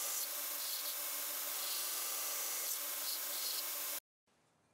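Belt grinder grinding the shoulders of a bloom steel knife blade held in a carbide file guide: a steady grinding noise with a faint hum under it, cutting off abruptly about four seconds in.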